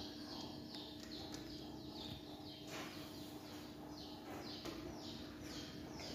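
A bird calling over and over: short, quick chirps that each slide downward in pitch, about two a second, with a faint steady hum underneath.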